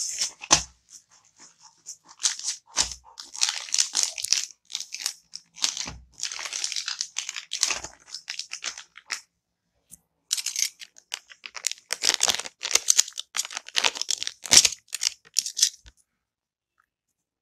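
Clear plastic packaging being handled and torn open: crinkling and rustling in irregular bursts, with a few dull knocks. The sound stops near the end.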